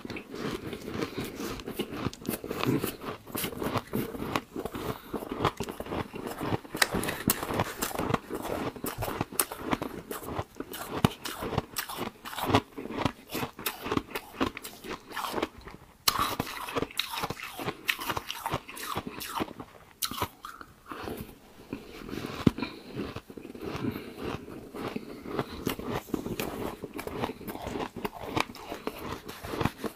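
Mouthfuls of fluffy white ice being bitten and chewed: a dense run of crisp crunches, pausing briefly twice.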